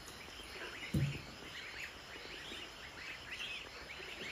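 A flock of goslings peeping, many short chirps overlapping throughout. A single dull thump about a second in.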